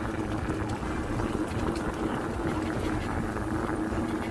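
A dog sled rolling fast along a dirt trail behind a running husky team: a steady rumble of trail noise with a faint constant hum, and wind on the phone's microphone.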